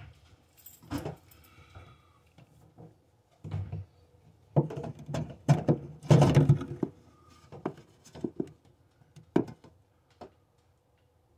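Irregular knocks, clunks and rattles of tub drain and overflow parts being handled and fitted, loudest in a cluster about halfway through. A brief high squeak about a second in.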